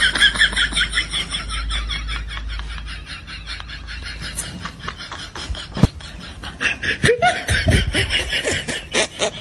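Person laughing in quick, evenly repeated pulses, with one sharp click about six seconds in.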